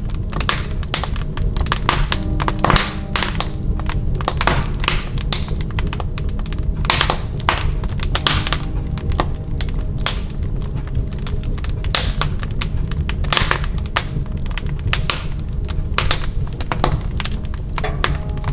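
Soft background music with many irregular taps and clicks sounding over it throughout.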